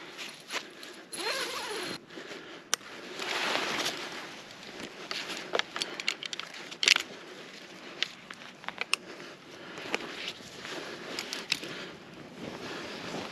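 Fabric rustling and scraping with scattered sharp clicks and knocks, the loudest about halfway through: climbing gear and tree-tent fabric being handled.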